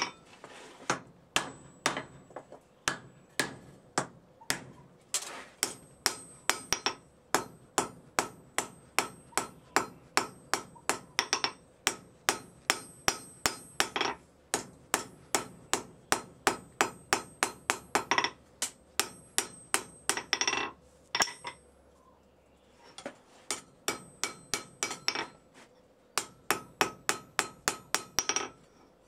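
Hand hammer forging a hot railroad-spike steel blade on an anvil: a steady run of blows, about two to three a second, each with a metallic ring. The blows pause briefly twice near the end.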